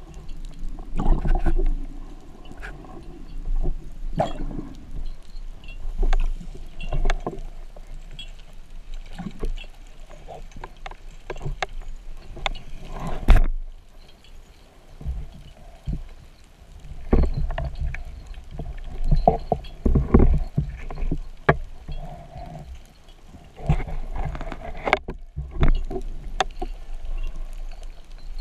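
Muffled underwater noise picked up by a camera housing mounted on a speargun: water rushing past in swells, with frequent clicks and knocks as the gun and its shooting line are handled, and one sharp knock about halfway through.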